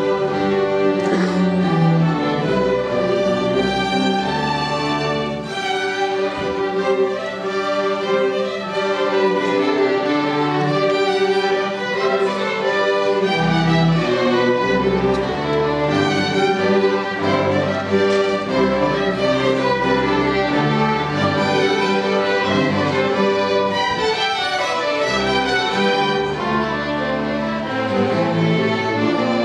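Student string orchestra of violins, cellos and double bass playing, bowed notes sounding together over a moving bass line at an even, full volume.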